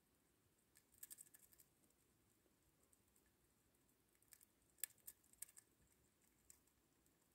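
Russian dwarf hamster chewing a dried worm: faint bursts of tiny crisp crunching clicks, about a second in and again around the middle.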